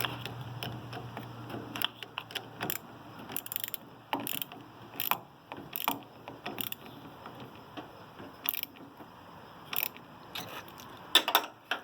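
Ratchet wrench clicking in short, irregular strokes as the clamp bolt on the negative battery cable is tightened.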